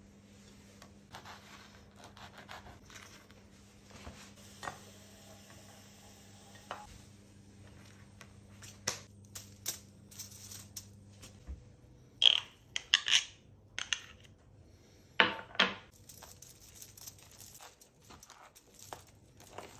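Kitchen handling sounds: foil and baking paper rustling on a wooden board, toasted bagel halves set down, and a table knife clinking and scraping as it spreads cream cheese, with a few sharp clatters near the middle. A faint low hum stops about halfway through.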